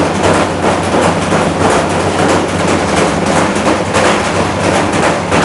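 Washing machine running with a brick tumbling in its drum: continuous loud rattling and banging over a steady motor hum.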